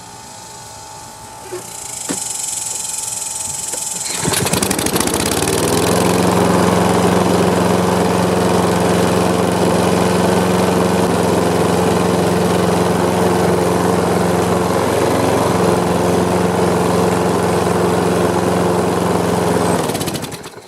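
Kohler engine on a riding lawn mower starting about 4 s in and running steadily, then shut off near the end. It runs without the knock it had before: carbon built up from the exhaust valve had been letting the piston hit the head.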